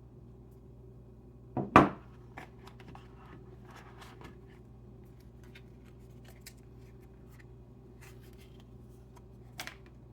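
Hands handling a phone and its packaging: a loud double knock about a second and a half in, then light clicks and scratchy rustles, and a sharp double click near the end, over a steady low hum.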